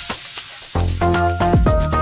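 Background music with a beat: short drum-like hits and clusters of held electronic notes.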